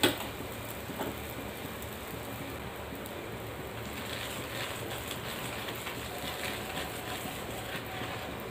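Aloo paratha frying on a hot iron tawa: a steady light sizzle, with a clink of a metal spatula at the start and another about a second in. From about four seconds in there is faint crackling as oil is spread over the top with a spoon.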